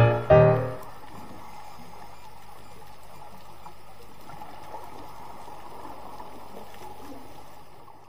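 A piano chord dies away in the first second, then steady, muffled underwater noise from the dive camera's recording, with faint water gurgles. It fades out near the end.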